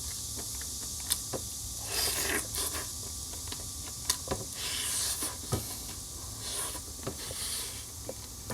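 Light eating noises: scattered sharp clicks and a few short hissy rustles over a steady background hiss.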